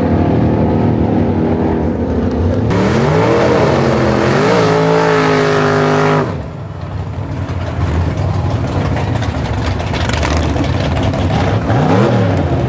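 Drag racing car engines: one engine running steadily, then, after an abrupt change, an engine revved up and down twice and held at a steady high note, then a rough noisy stretch with another quick rev up and down near the end.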